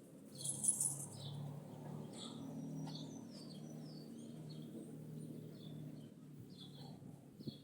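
Small birds chirping repeatedly in short high notes, over a steady low hum.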